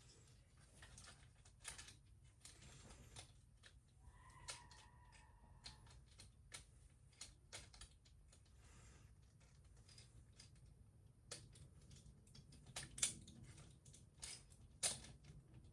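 Faint, scattered clicks and taps of hard plastic toy parts being handled and pressed together while fitting an upgrade-kit jetpack onto an action figure, with two sharper clicks near the end.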